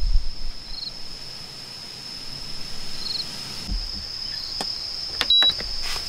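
Crickets chirping steadily at night: one continuous high trill with a shorter chirp repeating about every two seconds. Near the end come a few clicks and one short electronic beep from the rice cooker's buttons being pressed.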